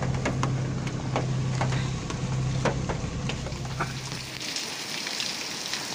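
Inside a car: a steady low engine hum and rumble with scattered sharp taps of rain. About four and a half seconds in it switches to the steady hiss of heavy rain falling on a wet paved yard.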